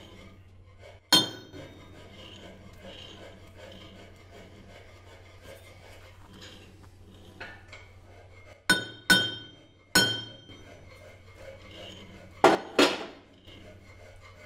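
Six sharp metal-on-metal strikes, each ringing briefly: one about a second in, the rest in a cluster about eight to thirteen seconds in. This is a fabricated two-cylinder crankshaft, held in a lathe, being knocked toward true and checked against a dial indicator.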